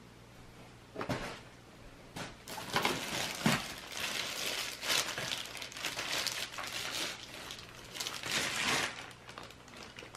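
Plastic packaging crinkling and rustling in irregular bursts as new stroller parts are unwrapped and handled.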